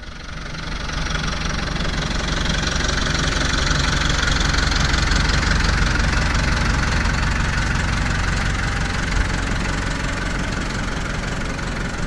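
Farm tractor's diesel engine running as it pulls up towing a flat wagon. It grows louder over the first two seconds as it nears, then runs steadily.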